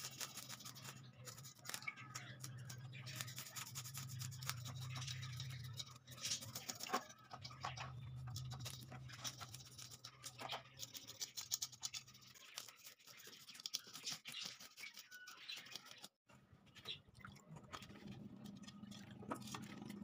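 Metal fish scaler scraping the scales off a whole fish on a plastic cutting board, in fast rasping strokes, then a knife cutting through the fish. A low steady hum runs underneath through the first half.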